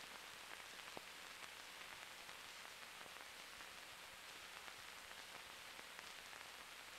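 Near silence: the faint steady hiss of an old film soundtrack, with a few faint scattered crackles.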